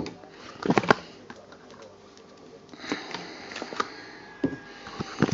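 Cupcake soaps in their moulded cases being handled and set down on a stone worktop: a few light knocks and short clattery clicks, spaced a second or two apart.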